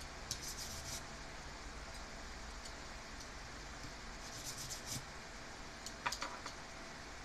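Faint rubbing and scraping from hands handling and working over a steering-wheel horn button, with two small sharp clicks about six seconds in.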